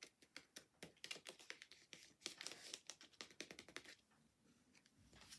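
Faint, irregular taps and rubbing of fingers pressing a cardstock layer down onto foam adhesive dots, stopping about four seconds in.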